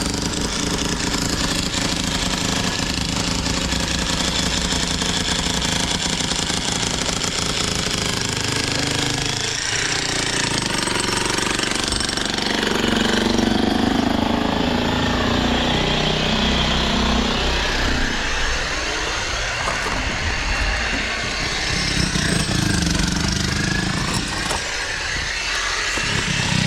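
Construction machinery: a power hammer or breaker hammers rapidly and steadily for about the first nine seconds, then an engine runs with varying load for the rest.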